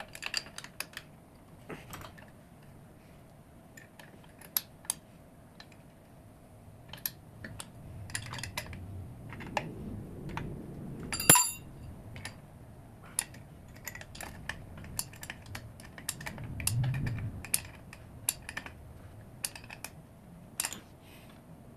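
Hand tools tightening nuts and bolts on a metal brake mounting plate: a string of irregular metallic clicks and clinks, with one louder ringing clink about eleven seconds in.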